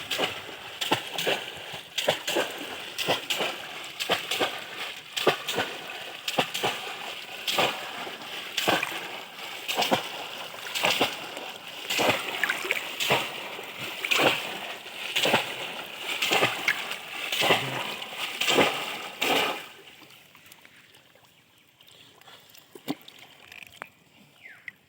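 Water splashing hard and irregularly, roughly one or two splashes a second, which stops abruptly about twenty seconds in.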